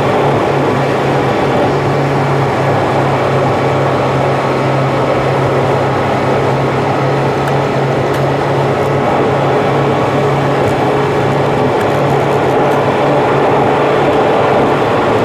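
Steady road and engine noise of a car cruising on an expressway: an even tyre-and-wind rush with a constant low hum.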